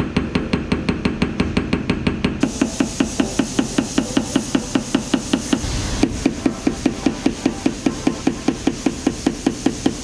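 Rapid, steady light hammer taps on the steel quarter panel of a Porsche 911, about four a second, knocking down high spots where bare metal pokes through the first coat of body filler.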